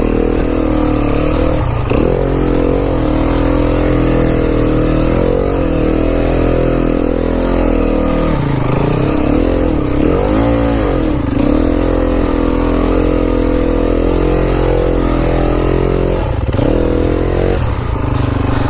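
Enduro dirt bike engine running hard on a climb, its revs swinging up and down several times as the throttle is worked.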